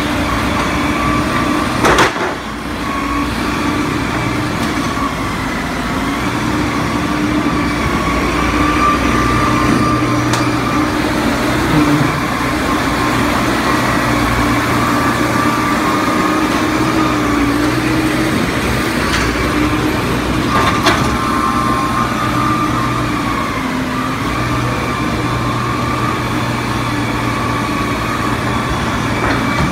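Doosan forklift's engine running steadily, with a steady higher hum over it. A sharp knock comes about two seconds in and another about twenty-one seconds in.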